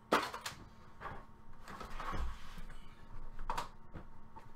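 Several separate sharp clicks and knocks, with a short rustle about two seconds in, from things being handled and set down on a wooden desk; one object is a roll set down on the desktop.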